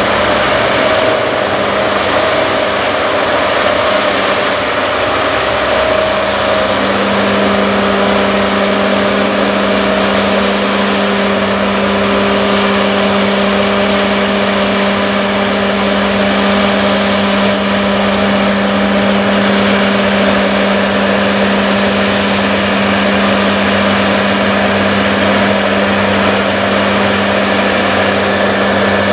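John Deere X9 combine harvesters running while harvesting wheat: a loud, steady mechanical drone with a hum that strengthens and steadies a few seconds in.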